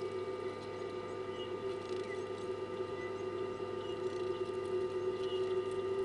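A steady hum of several held pitches, with a few short, faint bird chirps now and then.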